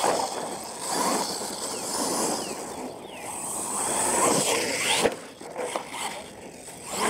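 R/C monster truck driving on dirt, its drivetrain whining in short rising and falling glides as the throttle is worked. One sharp knock comes about five seconds in.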